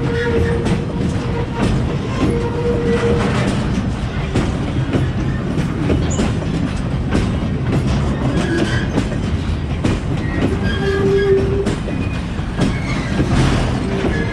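Loaded two-deck car-carrier freight wagons rolling past: a steady rumble with wheels clicking rhythmically over rail joints and brief metallic squeals from the wheels, the loudest a little past the middle.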